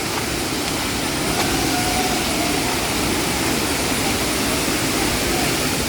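A waterfall's water pouring down, a steady, even rush of noise.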